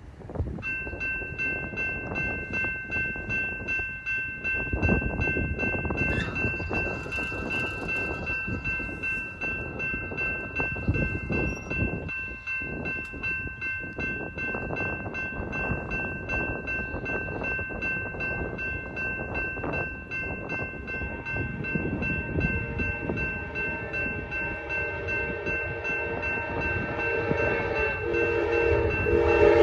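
GS Type 2 electronic crossing bell starts ringing about half a second in, a rapid, steady dinging that warns of an approaching train. Near the end the approaching Amtrak train's horn begins to sound, getting louder.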